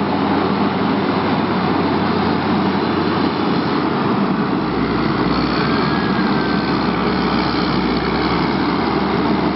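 Caterpillar 140M motor grader's diesel engine running steadily as the machine drives slowly, with a deeper rumble setting in about halfway through.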